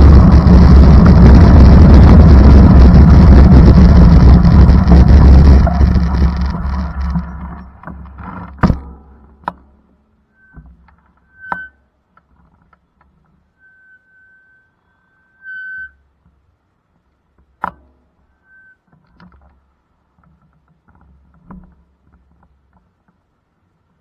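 Heavy, loud rumble of a moving vehicle with wind buffeting the microphone; it fades away between about six and nine seconds in. After that it is nearly quiet apart from a few sharp clicks and several short, high, steady whistle-like tones.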